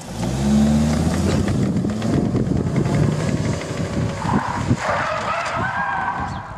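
Volkswagen Jetta sedan's engine running hard under acceleration, then its tires squealing through a hard turn, starting about four seconds in and lasting about two seconds.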